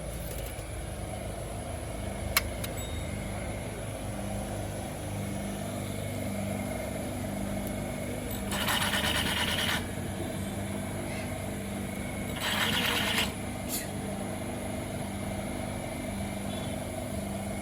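Toyota Corolla XLi engine running steadily, with the noise problem under investigation. There are two short bursts of hissing noise in the middle and a single click a couple of seconds in.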